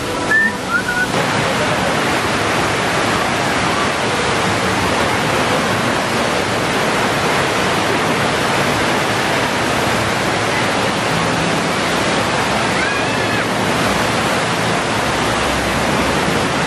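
Loud, steady rush of water swirling around the walk-through water-vortex tunnel of the Poseidon's Fury attraction.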